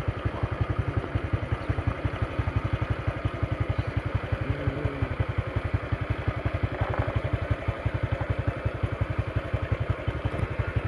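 A small engine idling steadily, with a fast, even, low putter.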